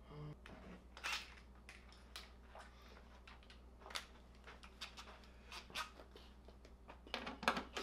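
Faint, scattered clicks and clinks of hand tools and bike parts being handled, a few of them a little sharper, over a low steady hum.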